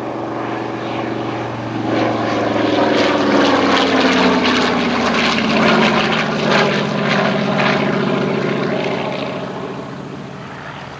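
General Motors-built TBM Avenger's Wright R-2600 Cyclone 14-cylinder radial engine and propeller in a fly-past. The sound grows louder about two seconds in, slides down in pitch as the plane passes, and fades near the end.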